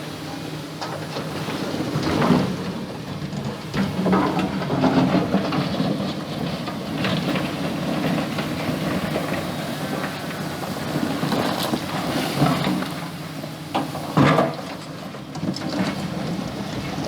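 Excavator engine running steadily, with loud knocks and scrapes every few seconds as its bucket digs and moves river stones.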